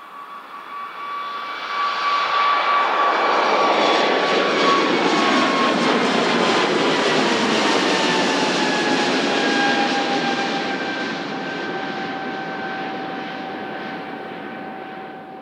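Airbus A220-300's Pratt & Whitney PW1500G geared turbofans at takeoff power as the jet climbs out past. The noise builds over the first two seconds and stays loud with a steady whine, which slides down in pitch as the aircraft goes by, then eases off and fades near the end.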